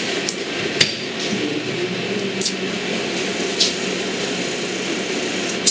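Steady running of a cold-air blowing tool aimed at chocolate bonbons to clear small surface bubbles, with a few brief hisses on top.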